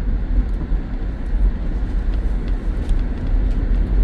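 Steady low rumble of a Subaru driving on a snow-covered road, heard from inside the cabin: engine and tyre noise with a few faint ticks.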